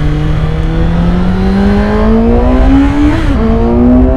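Suzuki GSX-S750's inline-four engine accelerating under load, its pitch rising steadily. It drops briefly for an upshift about three seconds in, then climbs again in the next gear.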